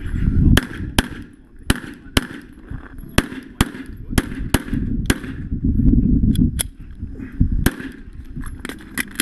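Pistol shots fired in a rapid string, often in quick pairs with short pauses between, as a competitor shoots a USPSA stage.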